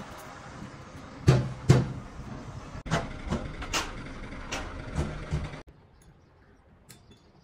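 A run of about eight sharp knocks over a steady machine hum. The two loudest come close together near the start, and lighter ones follow over the next few seconds. The hum and knocks cut off abruptly a little past halfway, leaving a much quieter background with a few faint ticks.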